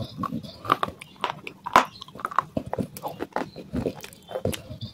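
Biting and chewing pieces of a clay pot: an irregular run of sharp crunches, several a second.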